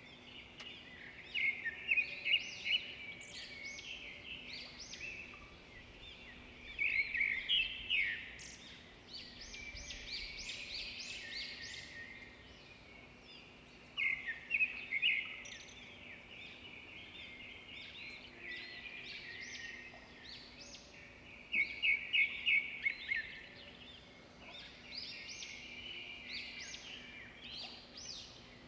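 Small birds chirping in quick bursts of short, high calls every few seconds, over a faint steady hum.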